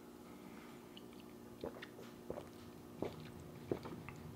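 A man gulping down leftover beer from the bottle: four faint swallows about two-thirds of a second apart, starting a little over a second in.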